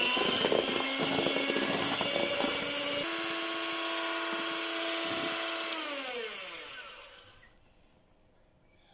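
Electric hand mixer whirring as its twin wire beaters whip egg whites to a foam, its pitch stepping once about three seconds in. It is then switched off and winds down with a falling whine, stopping at about seven and a half seconds.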